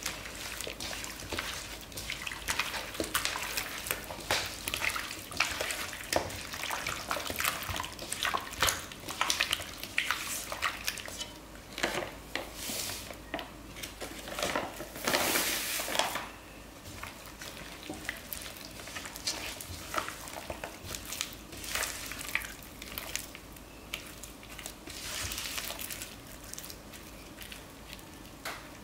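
Raw chicken pieces being hand-mixed in frying-mix batter in a large pot with a plastic-gloved hand: irregular wet squishing and crackling, with a louder burst about halfway through.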